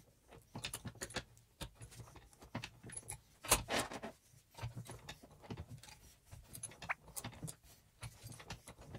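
Steel motorcycle roller chain clinking and rattling as it is shifted link by link through the jaws of a bench vise, where the links are being crimped to close up their play. There is a louder metallic knock about three and a half seconds in.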